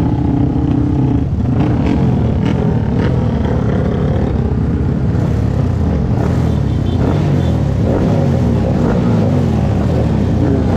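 A convoy of many motorcycles passing close by, their engines revving in a continuous overlapping drone whose pitches rise and fall as individual bikes go past.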